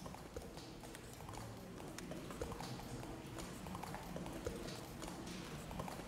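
Footsteps tapping irregularly on the hard floor of a cave.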